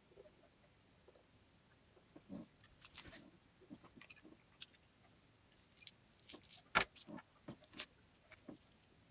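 Scattered light clicks and taps of small hard parts being handled, with one sharper knock about two-thirds of the way through.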